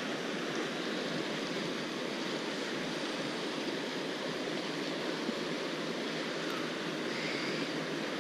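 Steady rush of a shallow mountain river flowing over rocks.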